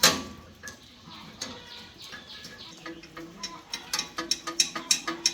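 A sharp knock, then scattered clicks, then from about halfway on a quick run of clicks and taps, three to four a second, getting louder.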